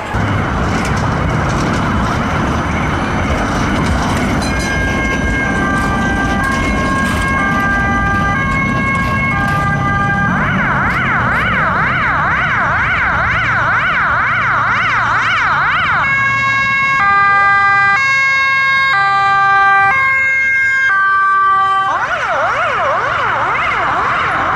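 Emergency vehicle sirens of police cars and an ambulance on a call, over road rumble. The sirens switch back and forth between a fast up-and-down yelp and a stepped pattern of steady tones. The stepped tones are loudest about two-thirds of the way through.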